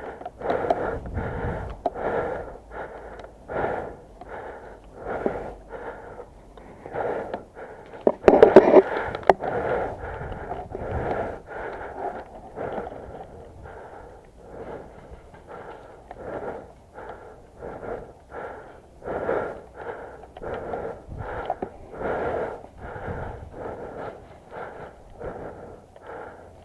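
A person breathing hard and wheezily in a steady rhythm, a little faster than one breath a second, with one louder breath about eight seconds in.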